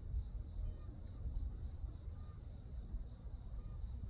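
Steady high-pitched chorus of night insects, crickets, trilling without a break over a low rumble.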